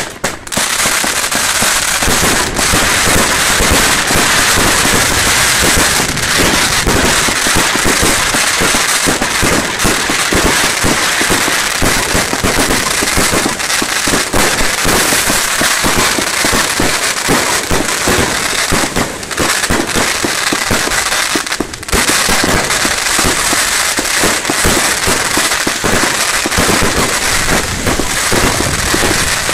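Triplex TXB883 'Fun box' 100-shot firework cake firing a rapid, continuous barrage of shots and aerial bursts, the reports packed so closely they run together, with a brief lull about three-quarters of the way through.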